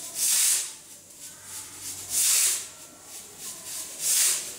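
Three short hissing bursts, each about half a second long, one roughly every two seconds.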